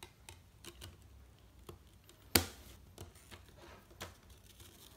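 Light plastic clicks and taps from handling a clear CD jewel case, as discs are pressed onto and lifted off the tray's centre hub, with one sharp, louder click about two and a half seconds in.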